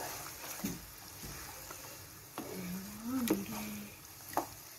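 Wooden spatula stirring and scraping a simmering chicken curry in a non-stick kadhai, with a few soft knocks of the spatula against the pan and a brief low hum around the middle.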